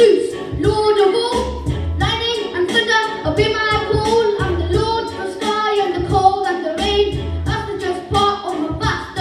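A song: children's voices singing over an instrumental backing with a steady beat and recurring bass notes.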